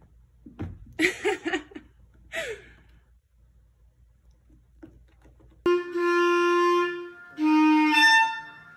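Two long, steady notes played on a wind instrument, the second a little lower than the first, starting suddenly about six seconds in. Earlier there are a few brief, wavering sounds about a second and two and a half seconds in.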